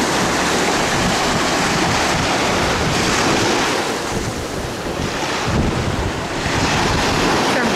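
Sea surf washing and breaking in the shallows, with strong wind buffeting the microphone.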